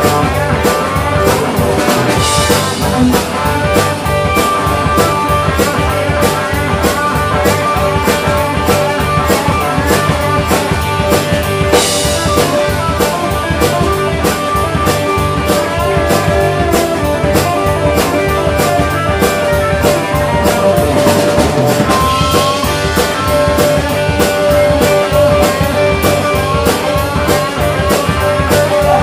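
Live rock band playing a blues-rock song with Roland RD-300 stage piano, electric bass and drum kit, driven by a steady beat. There are louder cymbal-like accents about two seconds in and again about twelve seconds in.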